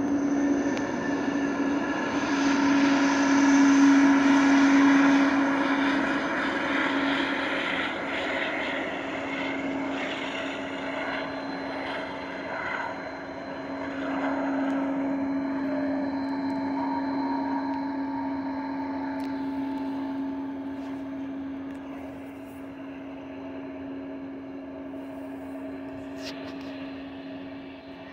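Jet engines of a twin-engine widebody airliner running at taxi power as it rolls past: a steady hum with one strong tone, loudest about four seconds in, then fading slowly as the aircraft turns away.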